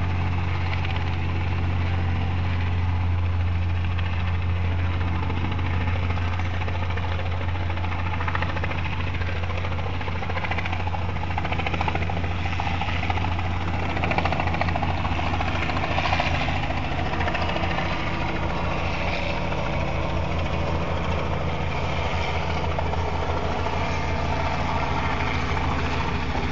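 An aircraft engine running steadily close by: a low, even drone that takes on a fast pulsing beat from about ten seconds in.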